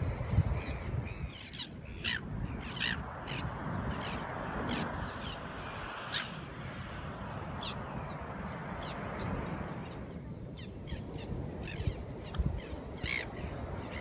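Birds giving many short calls in quick, irregular succession, over a steady rushing noise that stops about ten seconds in.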